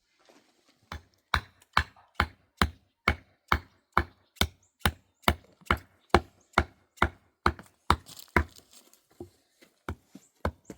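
A hand tool striking over and over at a steady pace of about two blows a second, pausing briefly near the end and then starting again.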